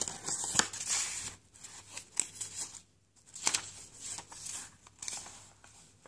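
Paper and card rustling, with several short sharp flicks and snaps, as the pages, tags and tucked-in cards of a handmade paper journal are handled and turned.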